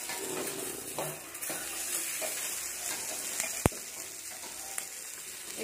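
Chicken pieces sizzling on an oiled stovetop grill pan over a low gas flame, a steady crackling hiss. There is a single sharp click about three and a half seconds in.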